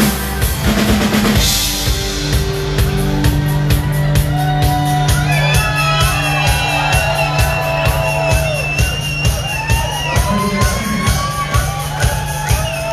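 Rock band playing live: drum kit keeping a fast, steady beat under bass and electric guitar, with a higher line of notes that bend up and down in pitch.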